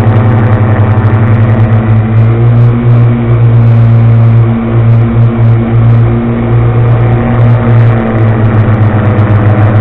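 A 250 engine running steadily at a constant speed, with the noise of bad bearings.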